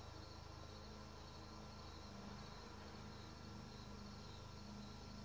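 Faint, steady chirping of crickets, with a low steady hum underneath.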